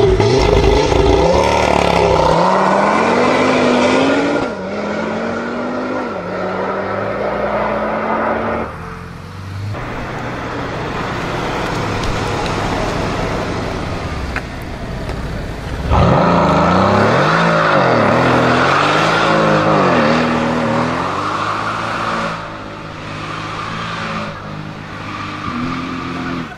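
High-performance sports car engines accelerating hard with loud exhausts. The engine pitch climbs and drops back at each upshift, then eases off. About 16 seconds in, a second loud burst starts suddenly, with the revs swinging up and down before it fades.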